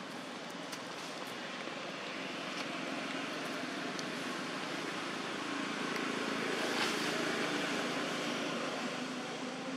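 A vehicle approaching along the road, its steady rushing noise growing to a peak about seven seconds in and then easing a little, with a few faint clicks over it.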